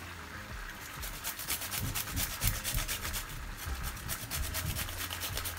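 Fresh ginger root being grated on a small hand grater, rhythmic rasping strokes several a second.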